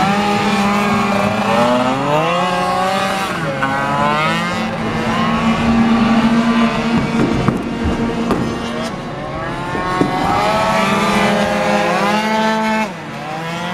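Several tuned two-stroke racing scooters lapping together, their engines revving up and dropping back again and again as they accelerate and slow for the corners. Their pitches overlap and cross.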